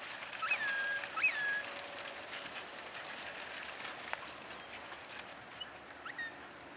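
Two short whistles about a second apart, each a quick rise and fall to a briefly held note, then a fainter one near the end, over a steady outdoor hiss.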